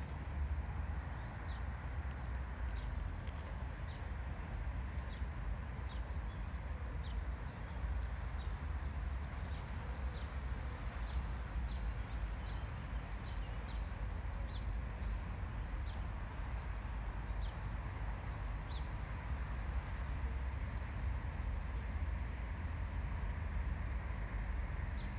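Outdoor ambience: a bird giving short, high, downward-sliding chirps about once a second, over a steady low rumble. The chirps stop a few seconds before the end.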